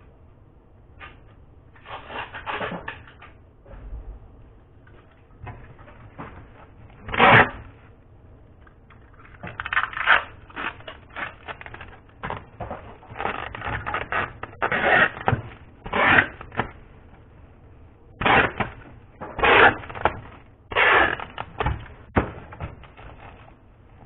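Foil crinkling and rustling in irregular short bursts as chocolates are hand-wrapped, with a louder clatter about seven seconds in.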